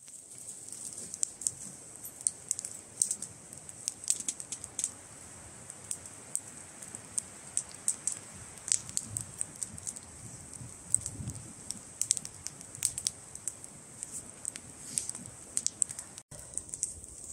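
Small campfire of wet, frozen wood crackling: irregular sharp pops and ticks, several a second, over a soft steady hiss.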